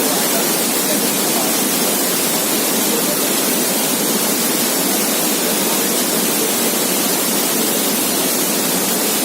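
Waterfall rushing steadily, a loud even roar of falling water that does not change.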